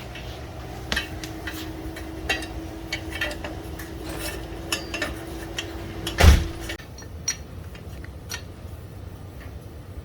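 Light metallic clinks and taps of a motorcycle exhaust header being fitted and its hardware handled, with one heavier metal knock about six seconds in. A faint steady hum runs under it and stops about seven seconds in.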